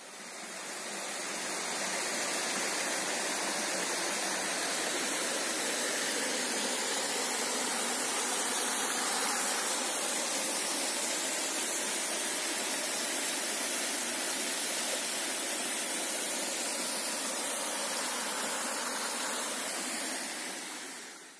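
Small waterfall and cascading mountain creek rushing and splashing over rock slabs, a loud, steady sound of falling water. It swells in over the first couple of seconds and cuts off just before the end.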